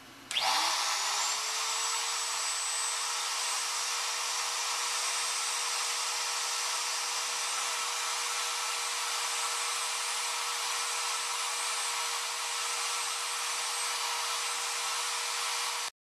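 Porter-Cable wood router motor switched on, its whine rising quickly in pitch as it spins up, then running steadily at full speed with the bit turning free above the workpiece. The sound cuts off abruptly near the end.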